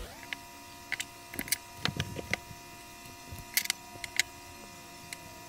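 Light clicks and taps of thread spools being handled and moved on a table, with thread drawn between the fingers, scattered irregularly. A faint steady hum of several tones runs beneath.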